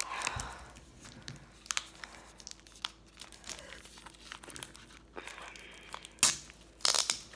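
Cloetta Kex candy-bar wrapper crinkling as it is pulled open by hand, with scattered crackles and a couple of louder rips near the end.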